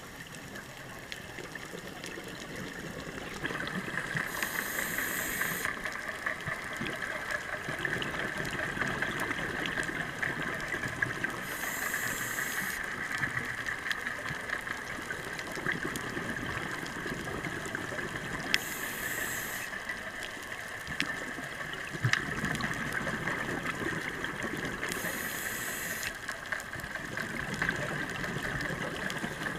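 Scuba diver breathing through a regulator underwater: four bubbly bursts of exhaled air about every six to seven seconds, each lasting a second or two, over a steady hiss, with a few faint ticks.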